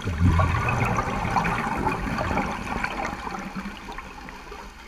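A diver's exhaled bubbles rumbling and gurgling underwater. The burst starts suddenly and fades over about four seconds.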